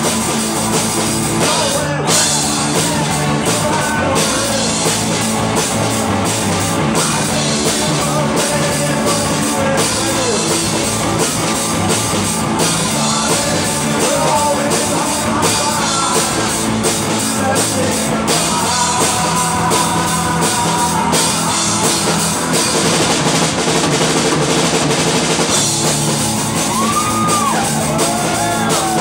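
Live rock band playing a song on guitar and drum kit, with the singer's vocal over it, loud and continuous.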